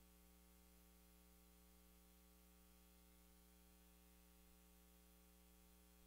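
Near silence: a faint, steady hum and hiss with no other sound.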